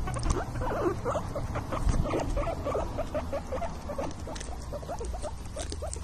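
Guinea pig squeaking in a rapid, unbroken run of short calls, several a second.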